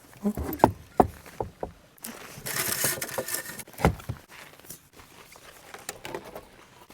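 Several sharp knocks in the first two seconds, a brief rustling hiss about two and a half seconds in, and one more knock shortly after.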